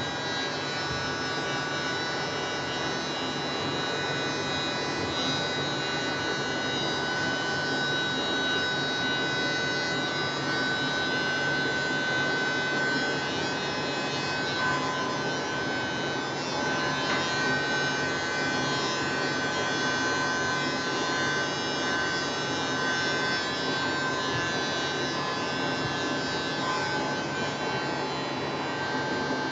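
Small handheld electric blower running steadily: a small motor's steady whine over a rush of air, blowing wet acrylic pour paint across a canvas.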